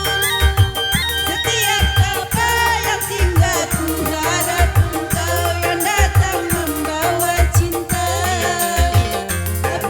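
Live Malay-style band music from an organ tunggal keyboard setup, with a steady bass beat, fast ticking percussion and a melodic lead that bends in pitch.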